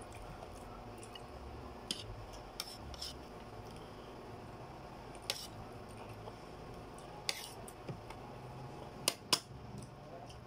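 Eating by hand from a plate: scattered short clicks and taps of fingers and food against the plate, the loudest two in quick succession near the end, over a steady low hum.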